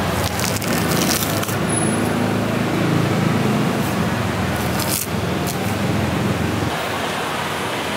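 Knife cutting and scraping through the thick pith of a peeled pomelo, with short rasping strokes about a second in and again about five seconds in, over a steady low rumble and hiss that drops near the end.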